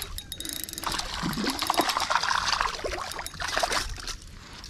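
A hooked bass splashing and thrashing at the water's surface as it is reeled in to the bank on a spinning reel, a jumble of short splashes and slaps.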